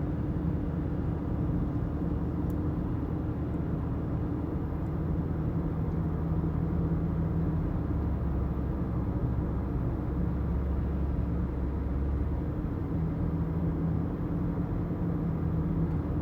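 Car driving uphill: a steady low drone of engine and road noise with an engine hum, the rumble growing heavier for a few seconds in the middle.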